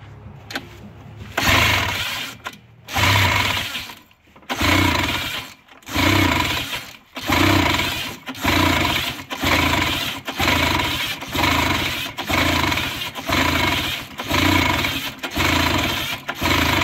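Old Ski-Doo snowmobile's Rotax two-stroke twin being cranked over and over, a surge of noise about once a second, not catching. The owner puts the failure to start down to fouled spark plugs.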